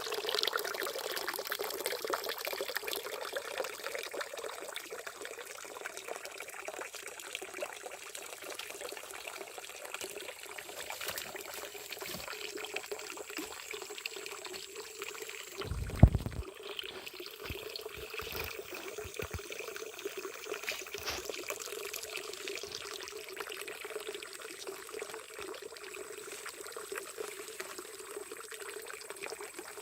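Water pouring steadily, with one sharp loud knock about halfway through.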